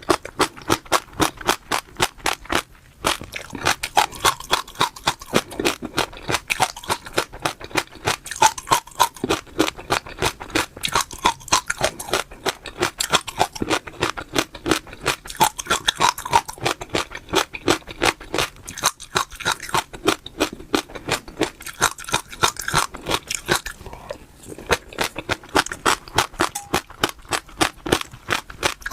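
Close-up chewing of crunchy seeds: a fast run of crisp crunches, about four a second, broken by a few short pauses.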